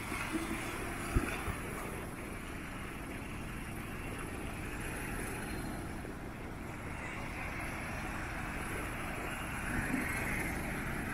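Off-road 4x4 engines running steadily as a lifted truck pulls another vehicle through a shallow river, mixed with wind on the microphone; a single sharp knock about a second in.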